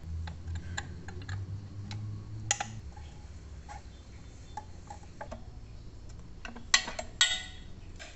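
Hands working on a motorcycle's coolant hoses and plastic parts, making scattered small clicks and knocks with a cluster of louder clatters about seven seconds in. A low rumble runs under the first few seconds.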